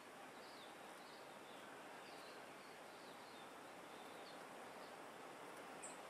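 Faint outdoor background hiss with soft, high chirps repeating every half second or so, and one brief sharp high sound near the end.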